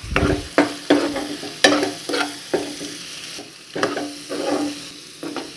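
Steel spoon stirring mushrooms, onions and chili powder around a non-stick frying pan, in about ten short scraping strokes, roughly two a second, over a faint sizzle of frying.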